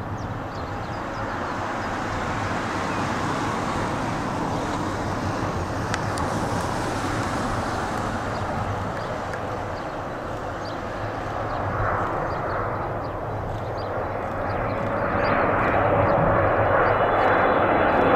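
Boeing 777-300ER on final approach, its twin GE90 turbofans making a steady jet rush that grows louder as the airliner nears. A faint engine whine rises near the end.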